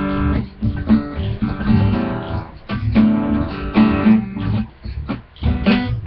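Acoustic guitar being strummed in a rough, uneven rhythm, chords ringing between the strokes.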